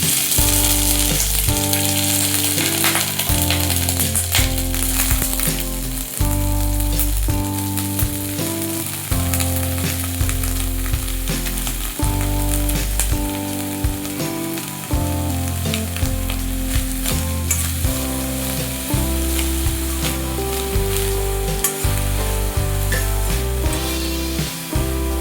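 Broccoli frying in hot oil in a pan, with a steady sizzle and crackle as it is stirred.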